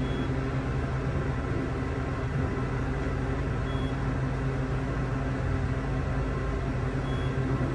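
Dover traction passenger elevator, modernized by ELCON, travelling upward. Inside the cab it gives a steady low hum and rumble of the car in motion.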